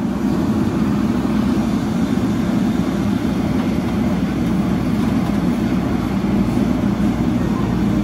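Heavy diesel engine of a construction machine running steadily and loud, a dense low rumble.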